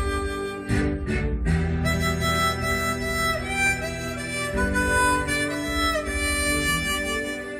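Instrumental background music: a slow melody of long held notes over a steady pulsing bass accompaniment.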